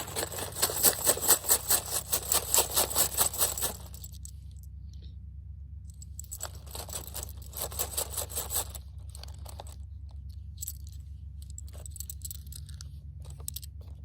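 Cartridges being loaded into a firearm magazine: a quick run of small metallic clicks and clinks, a pause, then a second, fainter run. A steady low hum sits underneath.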